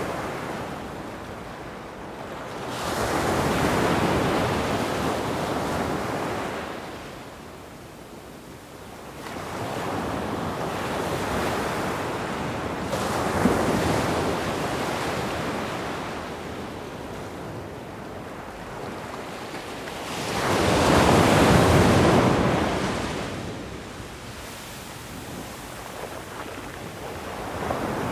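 Sea waves surging and washing in, the noise swelling and fading every several seconds, with the biggest wave about three-quarters of the way through.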